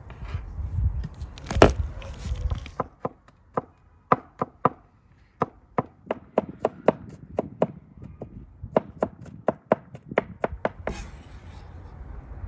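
Chef's knife mincing garlic on a wooden cutting board. After a rough, noisy start with one loud knock, the blade taps sharply on the board, two or three times a second, then scrapes near the end.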